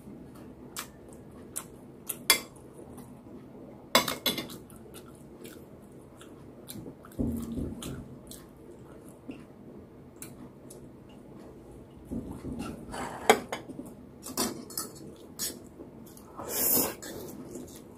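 Metal spoon and fork clinking and scraping against a ceramic bowl and plates in scattered, irregular clicks, with chewing between.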